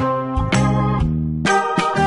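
Instrumental background music: sustained chords that change about every half second.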